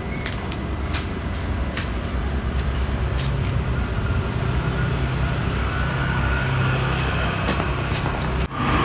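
Road traffic noise with a motor vehicle's engine running nearby, its low hum growing a little louder in the middle, with a few light clicks; the sound breaks off briefly near the end.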